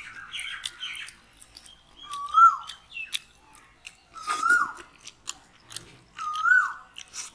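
People chewing fried fish with their mouths open, with wet smacking clicks. Over this, a bird calls three times about two seconds apart, each a short whistled note that rises and then drops; these calls are the loudest sounds.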